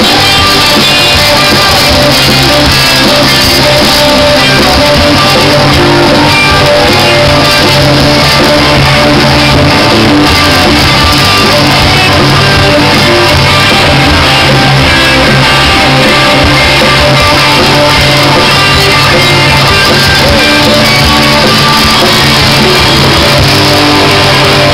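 Live rock band playing loudly, guitar to the fore, with some shouted singing.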